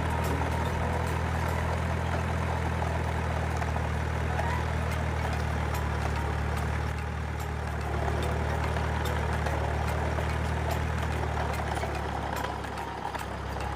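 Heavy engine idling: a steady low drone with faint scattered ticks over it, dropping away near the end.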